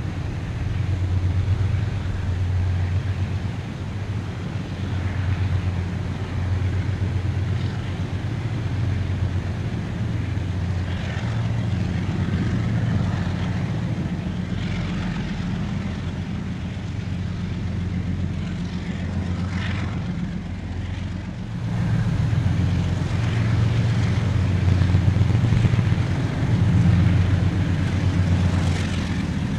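KiwiRail freight train's diesel locomotives running under way: a steady low engine drone that swells and eases, growing louder for the last several seconds.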